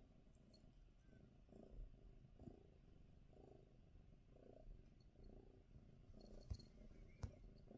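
Domestic cat purring softly, with two sharp clicks near the end.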